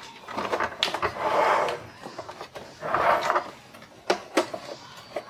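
Handling noise from working on a plastic toy truck: two short rasping rubs about a second and three seconds in, then a few light clicks.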